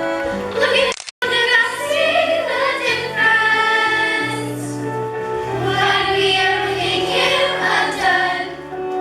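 A chorus of young stage performers singing together over instrumental musical accompaniment; the sound drops out for an instant about a second in.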